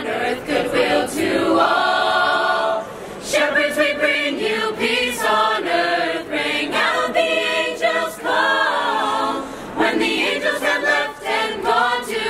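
Mixed youth choir of girls' and boys' voices singing a Christmas carol a cappella in harmony, with a held chord about two seconds in and short breaths between phrases.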